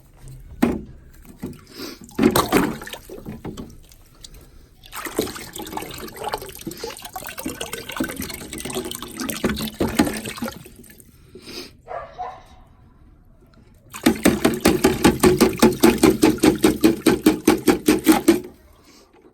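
Water running from an outdoor faucet into a container, with a couple of sharp knocks in the first few seconds. Near the end comes a louder gush of water for about four seconds that pulses rapidly.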